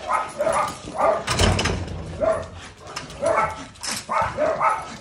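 A dog barking repeatedly, about ten short barks in uneven runs of two or three. A brief low rumble about a second and a half in.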